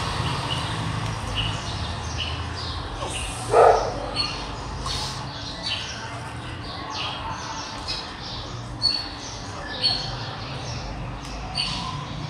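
Birds chirping in short, scattered calls, with one louder call about three and a half seconds in.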